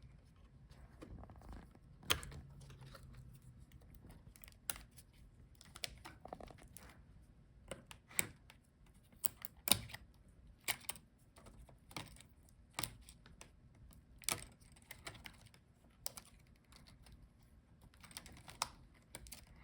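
Small sharp clicks and taps at irregular intervals: cable connectors and their retaining clips being unplugged from a laptop motherboard.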